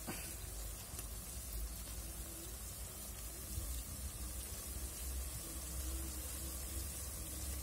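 Sliced garlic, ginger and green chillies frying in hot oil in a pot: a steady sizzle as they wilt.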